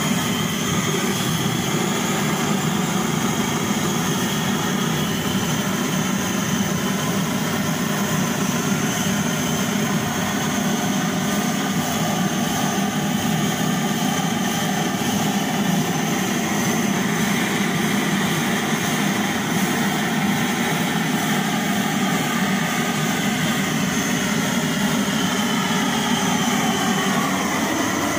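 Pressurized blow lamp burning with a loud, steady rush of flame as it singes the hair off a goat carcass.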